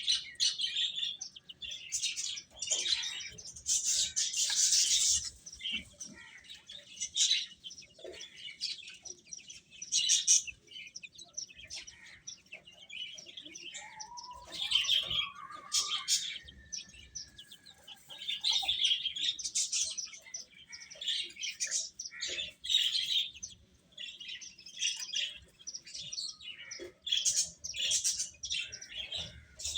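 Baby chickens (chicks) peeping continuously, many high chirps overlapping, with one lower, rising call about halfway through.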